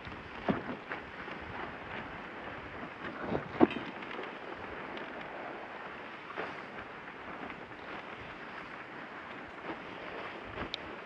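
Dog team pulling a musher along a trail: a steady rushing noise with wind on the microphone, broken by a few sharp knocks, the loudest about three and a half seconds in.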